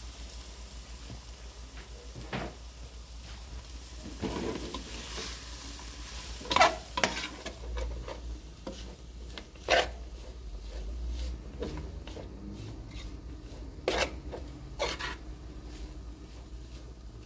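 Metal spoon stirring shredded chicken breast in a metal pot as it sautés, with a light sizzle and several sharp clanks of the spoon against the pot, the loudest a little over six seconds in.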